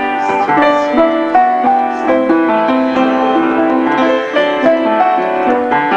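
Piano being played: a tune with a melody line over held chords, the notes changing every half second or so.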